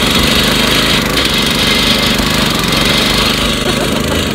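Small engine running steadily and loud, a low pulsing rumble under a harsh hiss.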